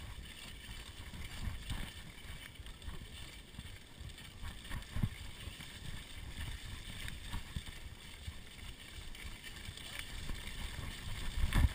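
Mountain bike riding down a muddy dirt trail: wind rumbling on the microphone, with the bike's knocks and rattles over the bumps and a heavier thump near the end.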